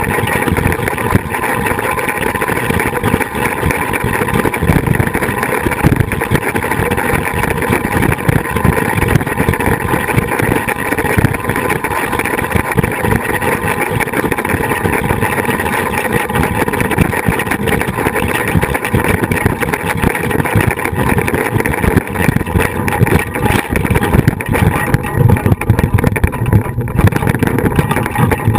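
Flying-fox trolley running along its steel cable: a loud, steady rolling whir from the pulleys, with wind buffeting the camera fixed to the trolley frame.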